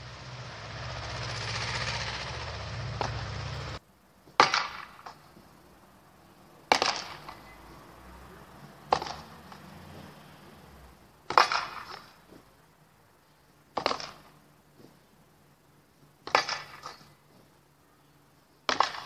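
A training longsword striking a wooden pell: seven hard, sharp blows about two and a half seconds apart, each followed by a brief rattle. Before the blows, a swelling rush of noise cuts off abruptly about four seconds in.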